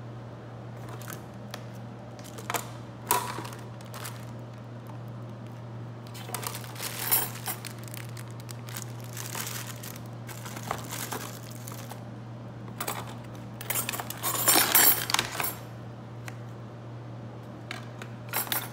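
Light clicks, clinks and rustling of household items and plastic-wrapped packages being handled, louder in two short spells, over a steady low hum.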